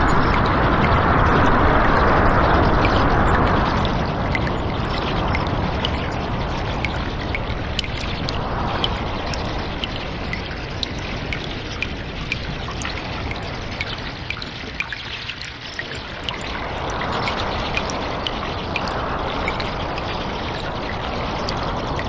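Water trickling and pouring, with many small drips ticking over the rush. The rushing is strongest for the first few seconds, thins to its lowest about two-thirds of the way through, then swells again.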